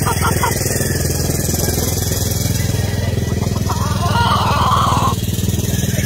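A motor running steadily, a low even drone with a fine rapid pulse. About three and a half seconds in, a brief higher call-like sound rises over it for about a second and a half.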